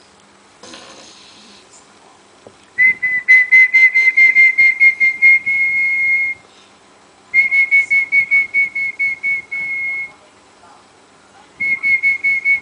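French bulldog puppy snoring with a high whistle through its short nose, three breaths in a row, each whistle fluttering at about four pulses a second.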